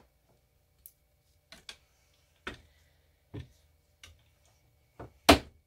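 Light knocks and taps from handling freshly cut bars of cold process soap on a wooden wire-cutter box and setting them down on a metal sheet pan, about eight in all, the loudest near the end.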